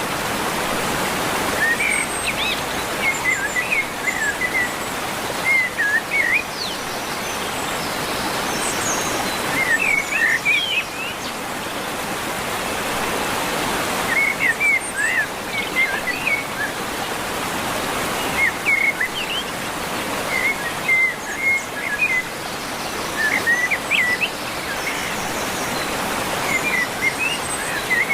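Waterfall rushing steadily, with small birds chirping in short bouts of quick high notes every few seconds over the water noise.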